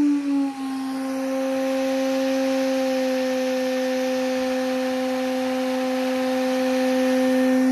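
VFD-driven CNC spindle motor running unloaded with a steady whine. Its pitch drops over about the first half second as the spindle speed is turned down, then it holds steady at the lower speed.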